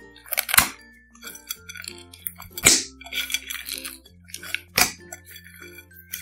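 Clear slime with mixed-in beads being squished and worked, giving sharp clicks, pops and crackles, three of them loud, over light background music with a steady bass line.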